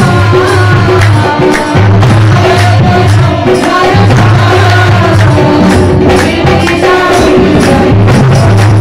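A woman singing a devotional kirtan song into a microphone, amplified and loud. Hands clap along in a steady beat.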